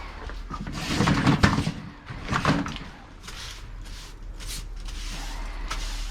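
Household clutter being picked up and moved: loud clattering, scraping and a couple of sharp knocks in the first few seconds, then a series of short, lighter scraping or brushing sounds.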